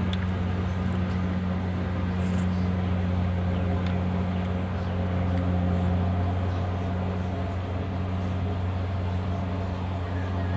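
Rice combine harvester's engine running steadily in the field, a continuous low drone.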